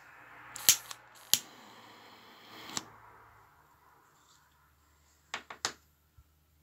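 A lighter being struck to light a flame: three sharp clicks over a faint hiss in the first three seconds, then three quicker clicks a little after five seconds.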